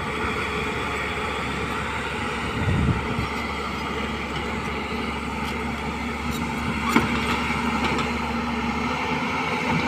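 Excavator's diesel engine running steadily, with a single sharp knock about seven seconds in.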